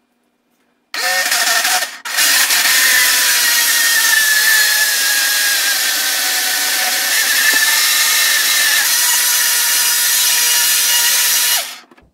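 350-watt electric blender motor running, blending a thick load of yogurt, blueberries, banana and honey. It starts about a second in, stops for a moment, then runs steadily with a whine before cutting off near the end.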